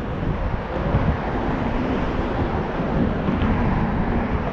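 Wind buffeting the microphone, a steady rough rumble.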